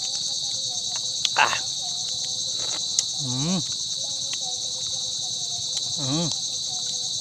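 Steady high-pitched drone of an insect chorus. Three short murmured vocal sounds from a person break in over it.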